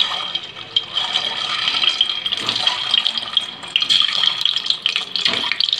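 Hot oil sizzling and crackling in an aluminium pressure cooker as whole peeled boiled eggs are dropped in to fry, a steady hiss dotted with many small pops.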